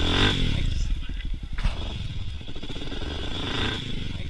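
Trail motorcycle engine revving hard on a hill climb, its pitch swinging up and down at first, then running on a little lower.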